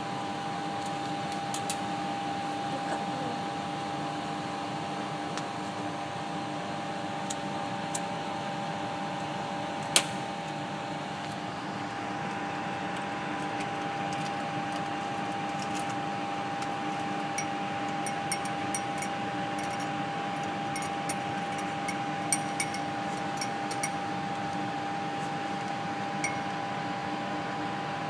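Steady hum of a laminar flow cabinet's blower fan. Over it come scattered light clicks and crinkles of foil and glassware being handled, with one sharper click about ten seconds in and a run of small clicks in the second half.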